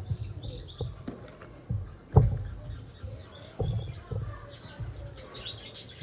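Small birds chirping in short high calls, over irregular low knocks and thumps; the loudest thump comes about two seconds in.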